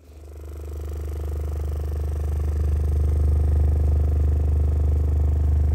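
Repaired Kicker 10-inch CompRT subwoofer playing a 20 Hz test tone: a deep, steady hum with a buzzing edge from the cone at large excursion, swelling over the first few seconds and then holding steady. There is no grinding or slapping from the voice coil, a sign that it came out centered.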